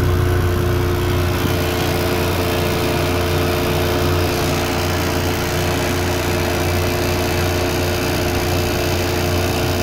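Electric boat motor and its FET controller running steadily under way, a constant low hum with two steady held tones, over an even rushing noise.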